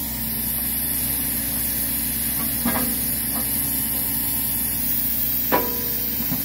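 A hi-rail grapple truck's engine running steadily, with two short knocks a few seconds apart.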